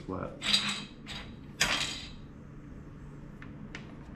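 Handling noise from small hard objects being moved: two short rustling scrapes, about half a second and a second and a half in, then a couple of faint clicks.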